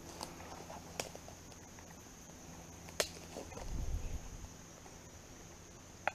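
A person moving quietly through woodland undergrowth: two sharp twig-like snaps about a second and three seconds in, and a brief low rumble near four seconds, against a faint steady forest background.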